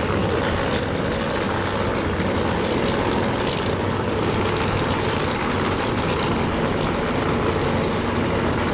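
Alcohol funny cars' methanol-burning V8 engines idling at the starting line: a loud, steady engine noise with no launch or rev-up.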